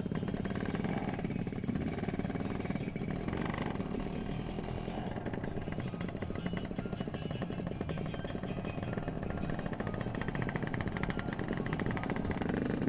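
Yamaha RX-King two-stroke motorcycle engine running at low, steady revs.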